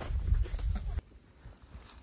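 Footsteps on dry leaf litter over a heavy low rumble, cutting off abruptly about a second in to a faint hush.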